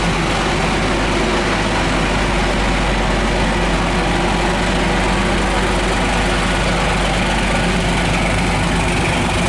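A passenger boat's engines running steadily with a heavy low rumble as it pulls away from the wharf, its propellers churning the water alongside the hull.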